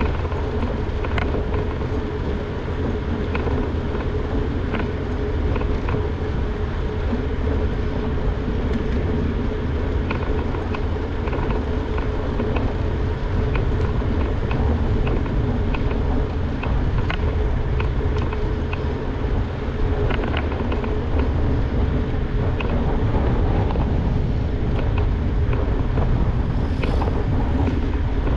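Steady low rumble of wind on a bike-mounted action camera and mountain-bike tyres rolling on a paved path. Under it runs a steady hum, and the bike makes scattered clicks and rattles.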